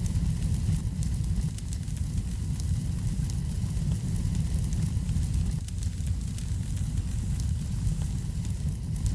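Wood fire burning in a fireplace: a steady low rumble with frequent small, sharp crackles and pops scattered throughout.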